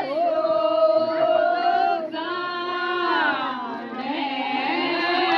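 Several voices singing a Bishnoi wedding farewell (vidaai) song in long, slowly bending held notes.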